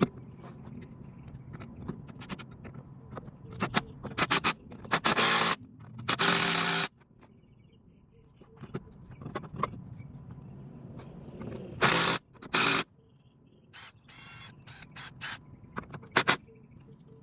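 A power tool of the kind used on brake jobs, most likely an impact wrench, running in several short bursts, each under a second. Between the bursts, tools and metal parts scrape and clink.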